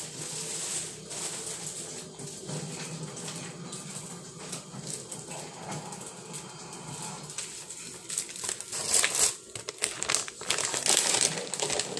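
Plastic cheese wrapper crinkling and rustling as it is handled and opened, in irregular bursts that grow louder near the end.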